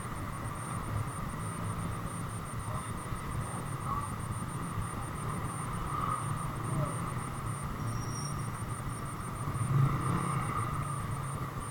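Steady low rumble of engines and traffic, with no distinct events.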